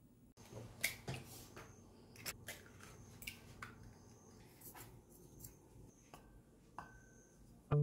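Scattered light clicks and taps of a wooden chopstick against a glass measuring cup holding cracked eggs, a few of them ringing briefly.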